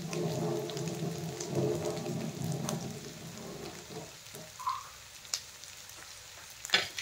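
Sliced onions and diced potatoes frying in oil in a nonstick pan, a steady sizzle with small crackles and pops. A low hum drones under it for the first few seconds, and a few sharp clattering knocks come near the end.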